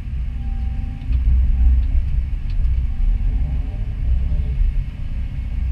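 Doosan DX225 excavator's diesel engine and hydraulics running under load as the bucket is worked, heard from inside the cab as a steady low rumble with faint short whines now and then.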